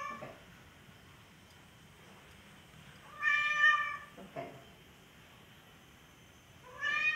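Domestic cat meowing to beg for food: one long meow about three seconds in, and another starting near the end.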